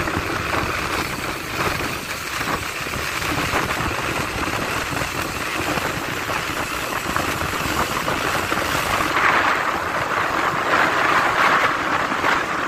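Motorcycle riding on a rain-wet road: a steady rush of engine, wind and tyres on wet pavement, growing louder about nine seconds in.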